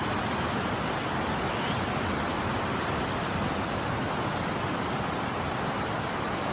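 Steady, even rushing of wind in a heavy snow squall, with no distinct events.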